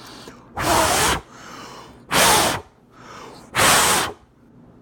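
A person blowing hard three times, each a short whooshing puff of breath about a second and a half apart.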